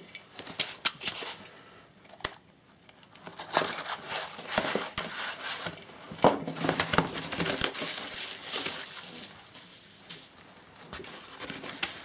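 Cardboard box being opened: packing tape cut and torn and flaps pulled back, then bubble wrap and plastic film crinkling as the contents are handled, in irregular bursts.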